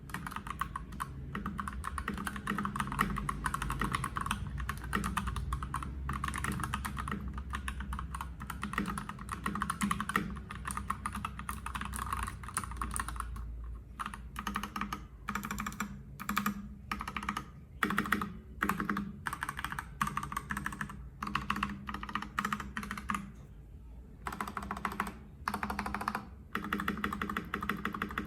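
Typing on a HelloGanss HS87T mechanical keyboard with linear Gateron Yellow Pro switches and PBT keycaps. It is a rapid, continuous run of keystrokes for the first half, then breaks into short bursts of typing with brief pauses.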